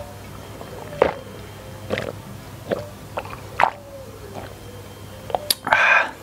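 A person drinking plain water from a glass jar: a series of gulping swallows, roughly one every half second to a second, with a short breathy exhale near the end.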